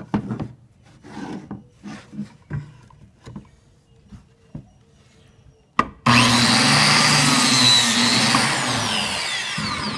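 Small knocks and rubs as the board and the biscuit joiner are lined up. About six seconds in, the biscuit joiner's motor switches on abruptly and runs loud while its spinning blade plunges a biscuit slot into the 1x4 board, starting to wind down near the end.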